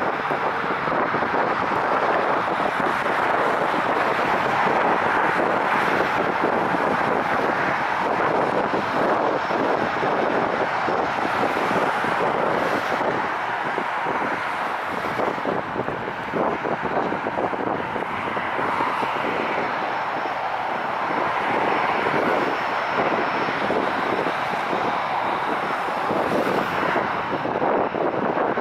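Airbus A320-211's CFM56 turbofan engines running at taxi power: a steady jet rush with a faint high whine.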